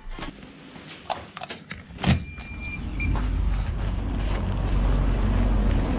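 Light clicks and knocks of gym equipment, a sharp knock about two seconds in, and a short electronic beep. Then a steady low rumble of street traffic outdoors that grows louder.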